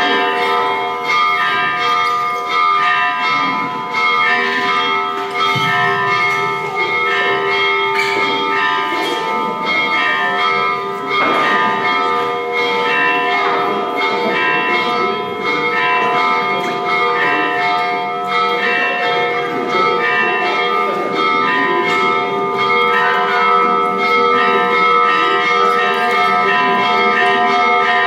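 Church bells ringing a continuous peal, struck over and over so that their tones overlap.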